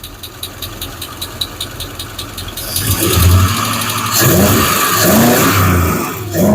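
Hemi V8 engine idling with a fast, even ticking from the valvetrain, then blipped up in revs several times from about three seconds in. The ticking is lifter clatter, which the owner fears comes from a lifter he has wrecked.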